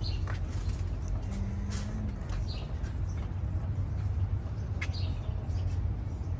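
A steady low rumble of open-air background noise, with a few short, high bird chirps spread through it and a brief low hum about a second in.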